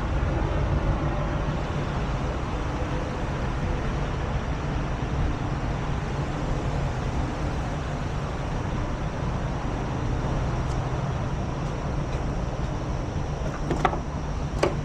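Heavy diesel truck engine running steadily, with a couple of short clicks near the end.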